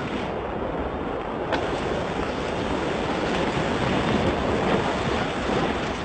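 Wind rushing over the microphone during a fast sandboard descent of a dune, a steady loud roar of noise with a single click about one and a half seconds in.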